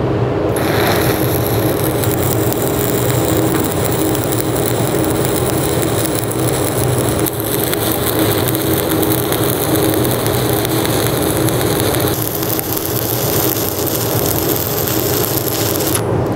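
Stick (shielded metal arc) welding: the electrode's arc crackling and sizzling steadily as the hot pass is run over the root of an open-root plate joint. The arc strikes about half a second in and is broken off just before the end.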